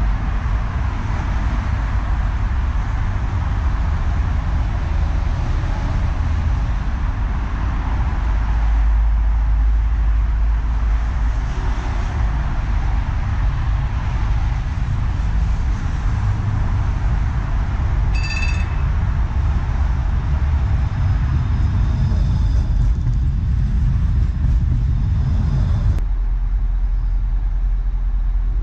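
Steady road traffic noise, a continuous rumble and hiss, with a brief high-pitched ring about eighteen seconds in. The low rumble drops abruptly a couple of seconds before the end.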